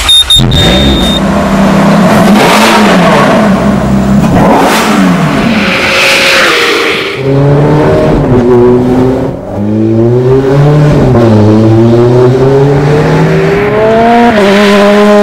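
Ferrari F430's 4.3-litre V8 accelerating hard under load, its pitch climbing and then dropping sharply at each quick upshift, three times in the second half.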